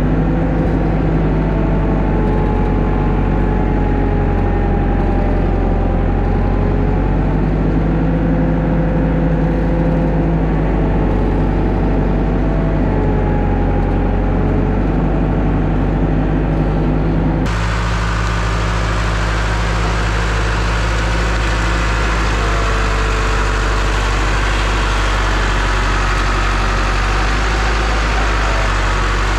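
International Hydro tractor's diesel engine running steadily, its pitch rising and falling a little. About seventeen seconds in, the sound changes abruptly to a brighter, hissier engine noise.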